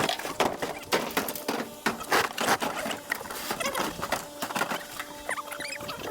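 Irregular knocks, clunks and clatter of hard objects being handled, with a few short squeaks about five seconds in.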